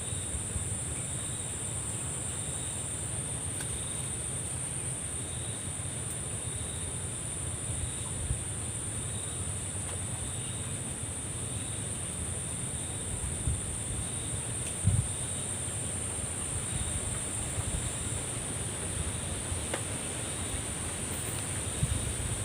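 Insects chirring in a steady, high, unbroken drone, over a low rumble of wind on the microphone.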